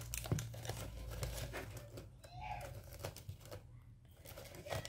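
Clear plastic packet crinkling and rustling as hands rummage in it, in irregular crackles.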